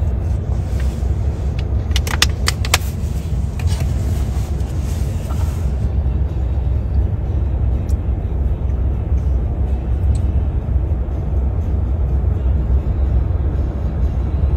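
Steady low rumble of a vehicle on the road, heard from inside the cabin, with a few sharp clicks about two to three seconds in.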